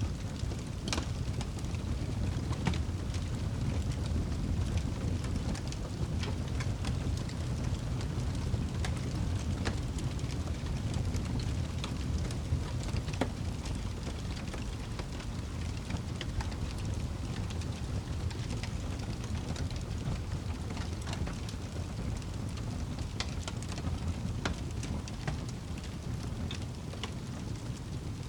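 Wood fire burning in a fireplace: a steady low rush of the flames with irregular sharp crackles and pops from the logs throughout.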